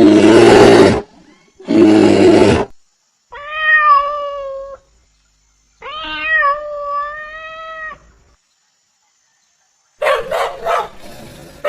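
Two loud roars from a big cat, then a domestic cat meowing twice, each meow long and drawn out. A few short, quick sounds come near the end.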